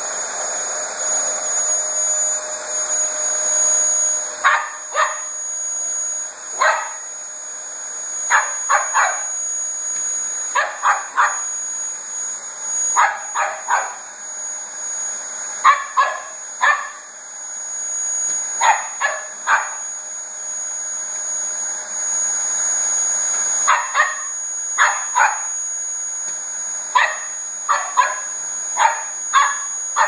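Border terrier barking at a running Dyson vacuum cleaner, the barks coming in quick clusters of two or three from about four seconds in. Under them the vacuum's motor runs with a steady hiss and a high whine.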